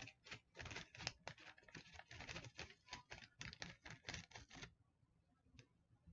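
Faint, rapid, irregular clicking and crinkling from handling a grape candy and its powder packet, stopping about four and a half seconds in, with a few single ticks after.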